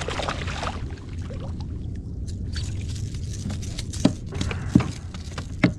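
Hooked sea trout splashing at the water's surface beside a kayak, fading within the first second. Later comes a run of three sharp knocks as the fish is lifted aboard and strikes the kayak.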